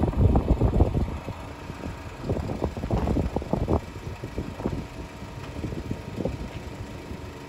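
Wind buffeting the microphone: an uneven low rumble that comes in gusts and is strongest in the first second or so.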